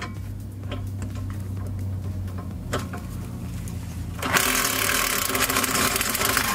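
Handheld power tool running on a 13 mm socket, backing out a rear wheel hub bolt. It holds a steady motor hum for about four seconds, then turns into a louder, harsher rushing noise near the end.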